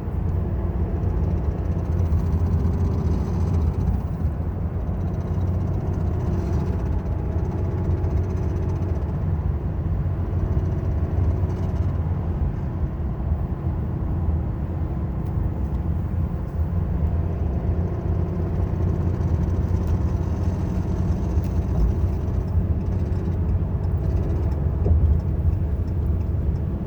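2018 Ram 3500's 6.7-litre Cummins turbo-diesel running steadily with an unidentified noise in the drivetrain. The owner finds the noise goes away when the clutch pedal is let up about an inch.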